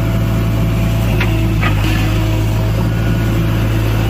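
JCB excavator's diesel engine running steadily close by, a constant low hum, with two short clicks a little over a second in.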